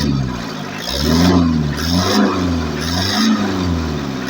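Mitsubishi L300 diesel engine revved in repeated short throttle blips, about one a second, each rising and falling back toward idle, while the engine is being tuned.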